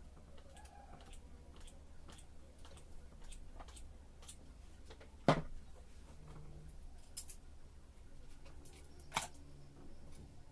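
Hair crimping iron being clamped and opened on sections of hair: scattered faint clicks and taps, with a sharper click about five seconds in and two more near the end, over a steady low hum.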